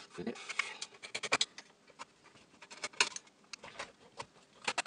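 Screwdriver clicking and scraping on small screws and the sheet-metal chassis of a stereo as its power-supply board is unscrewed and handled, a string of small sharp metallic clicks and taps, the sharpest right at the start and about three seconds in.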